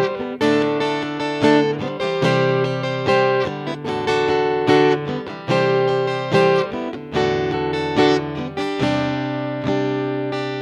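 Guitar played through a Roland GR-55 guitar synthesizer, strumming chords as the instrumental intro to a song; each chord rings on before the next is struck, about once or twice a second.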